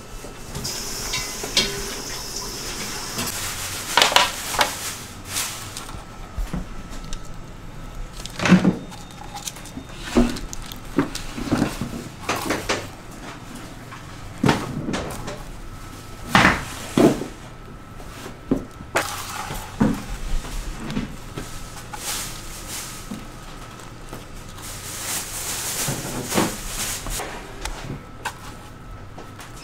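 Food-prep clatter: irregular knocks and clinks of kitchen utensils, trays and containers, with a soft hiss about a second in and again near the end.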